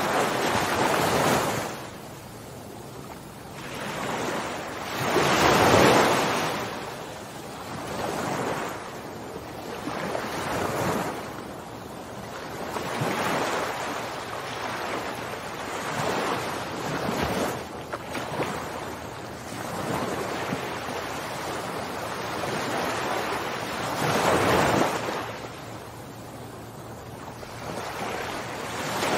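Ocean surf: waves swelling and washing out one after another, a rushing noise that rises and falls every few seconds.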